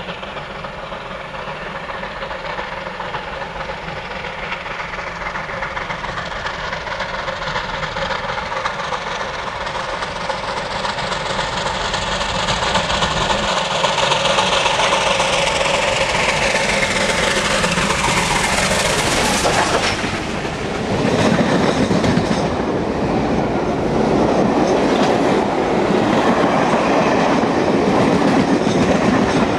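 A train approaching and running through at speed. Its sound grows steadily louder and its tone drops in pitch as the front passes about twenty seconds in. After that comes a loud, continuous clickety-clack of coaches passing close.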